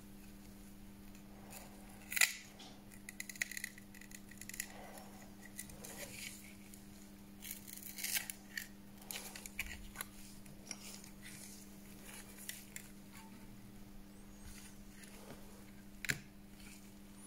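Small hand tools clicking and scraping against a Huawei P8 Lite 2017 smartphone during its screen replacement: irregular sharp clicks and short scrapes, the loudest click about two seconds in, over a steady low hum.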